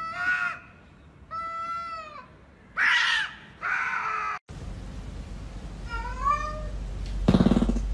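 Two domestic cats yowling at each other in an aggressive standoff: four drawn-out, wavering yowls over the first four seconds. After an abrupt change, a cat gives a short rising meow, then a louder, lower call near the end.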